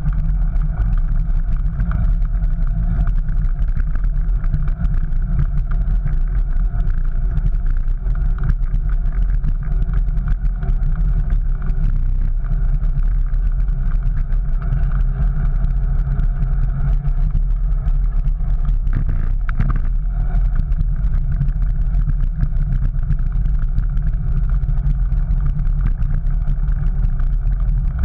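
Steady low rumble of wind and ride vibration on a bicycle-mounted GoPro rolling over paved sidewalk, with no gaps or changes.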